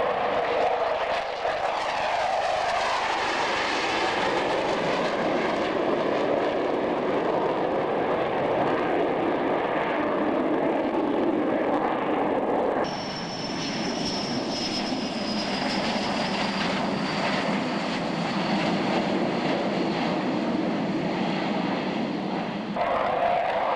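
F-4 Phantom fighter jet's twin jet engines in a loud, steady roar as it flies low past. About halfway through the sound changes abruptly, and a thin high whine, slowly falling in pitch, joins the roar.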